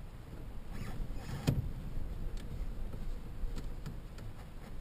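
Handling noise in a small aircraft's cockpit with the engine still off: a low steady rumble, one sharp knock about a second and a half in, and a few faint clicks.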